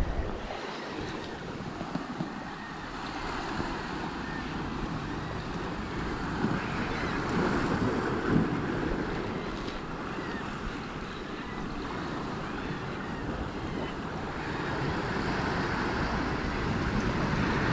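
Sea surf washing and breaking against shoreline rocks, with wind buffeting the microphone.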